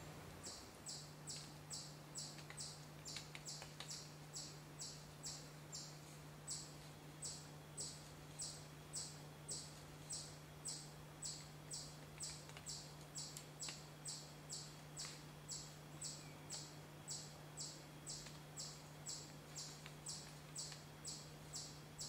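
Faint insect chirping in an even, unbroken rhythm, about three short high chirps a second, over a steady low hum.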